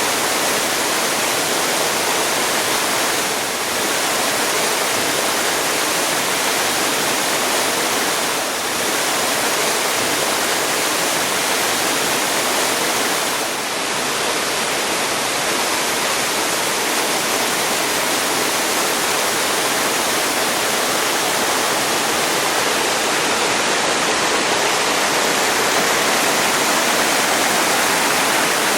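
Steady rushing and splashing of a waterfall, a dense hiss of falling water that dips briefly three times in the first half.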